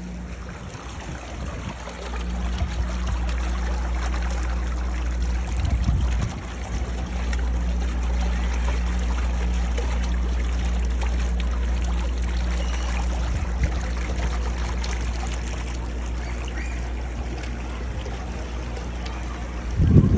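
Water running steadily, with a constant low rumble and hum underneath. It swells briefly a few times, most strongly right at the end.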